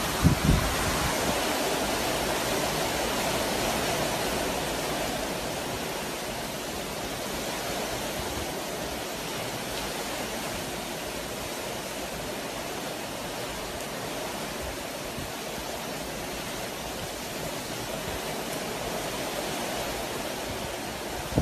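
Storm wind and heavy rain making a steady, dense rushing noise, swelling and easing slightly, with a short low bump right at the start.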